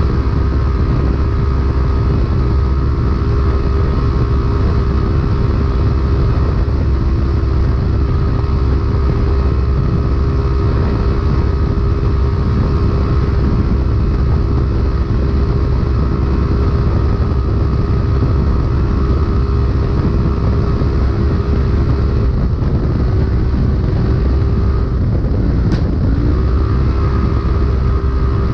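Polaris UTV engine running at high, steady revs under race load, heard from inside the cab over a heavy low rumble from the ride. About three quarters of the way through, the revs drop briefly and climb back.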